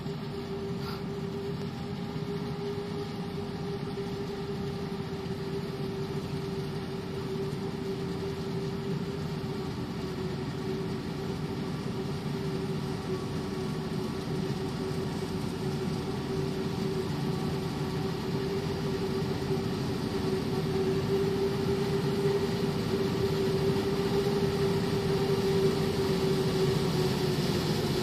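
Claas Jaguar 990 Terra Trac forage harvester chopping maize: a steady whine over the deep drone of engines, mixed with a tractor pulling a silage trailer alongside. It grows gradually louder as the machines approach.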